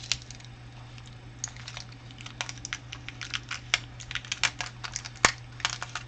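Irregular light clicks and taps, a few a second, with one sharper click about five seconds in, over a steady low hum.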